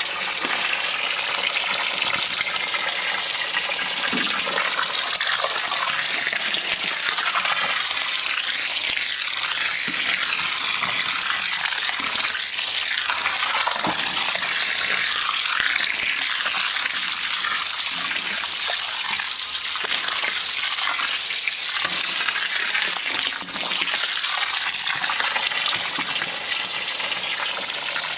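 Red wine pump-over: Syrah juice sprays from a hose nozzle onto the cap of grape skins in a fermentation tank, making a steady splashing hiss of liquid on the skins.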